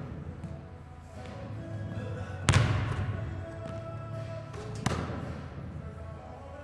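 A basketball bouncing, two echoing thuds about two and a half seconds apart, the first the loudest, over background music.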